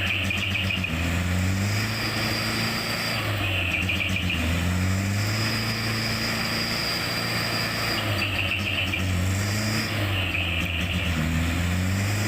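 Truck engine running steadily under load, its pitch rising and falling a little as it works.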